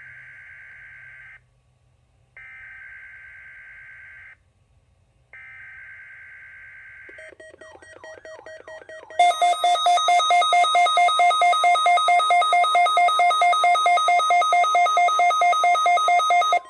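NOAA Weather Radio Required Weekly Test signal: three bursts of the SAME digital header, a buzzy data screech about two seconds each with short gaps between them. About nine seconds in, a much louder electronic alarm beep starts, pulsing about four times a second.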